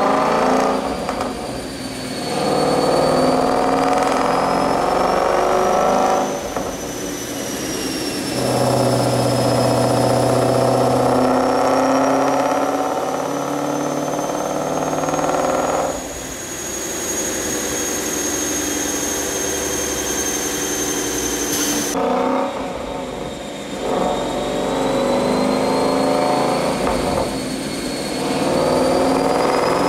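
Twin-turbo 5.0 V8 of a 2015 Ford Mustang GT running on a chassis dyno, in long steady stretches broken by brief dips as it goes through the gears. A high whine climbs slowly under the engine and drops off sharply about two thirds of the way through.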